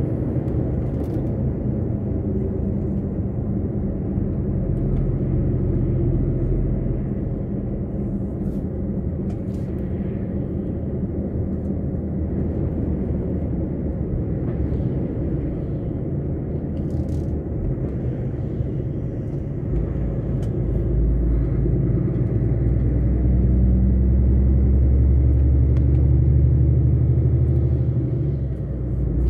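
Truck engine and road noise heard from inside the cab while driving, a steady low rumble that grows louder about two-thirds of the way through as the engine pulls harder.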